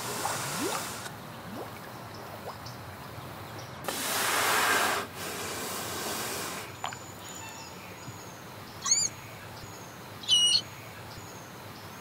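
Underwater recording of West Indian manatee calls: two short, high squeaks, one about two-thirds of the way in and one near the end, with faint thin whistles around them. Earlier there are two bursts of rushing hiss, each about a second long.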